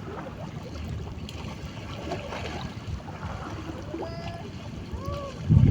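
Steady low rumble of wind and water on a small boat, with a couple of faint short calls about two thirds of the way in and a loud low thump at the very end.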